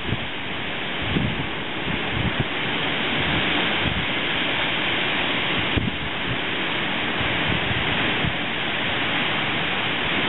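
Strong storm wind gusting through trees with rain, a steady loud rush. The wind buffets the microphone in irregular low thumps, mostly in the first couple of seconds.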